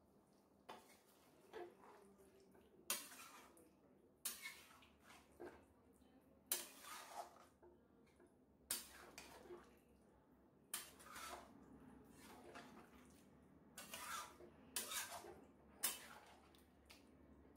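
A metal spatula and pan gripper clink and scrape against a kadai as fish in curd gravy is stirred, with short sharp knocks at irregular intervals, about one a second.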